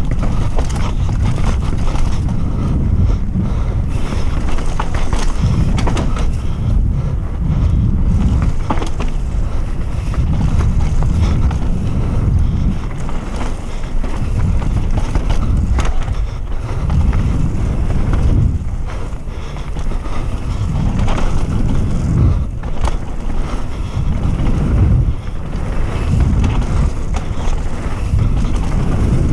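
Wind buffeting the microphone and tyre noise of a downhill mountain bike riding fast over a dirt trail, surging and easing every second or two, with many small clicks and knocks from the bike rattling over roots and bumps.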